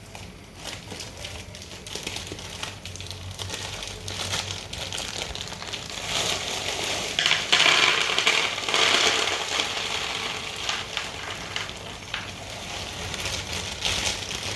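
Kitchen handling noises: rustling, crinkling and small clicks, loudest in a hissy, crinkly stretch about six to ten seconds in.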